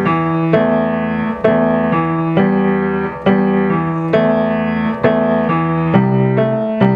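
Grand piano played slowly with both hands together: steady quarter notes in the bass, about one a second, keep the pulse under a simple right-hand melody.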